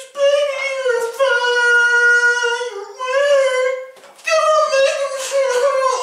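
A high-pitched voice singing long, drawn-out notes with no accompaniment, bending in pitch and breaking off briefly about a second in, near three seconds and around four seconds.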